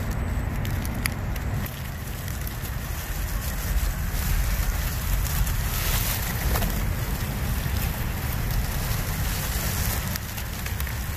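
Wind rumbling on the microphone, with dry leaves and twigs crackling now and then under a small RC rock crawler's tyres.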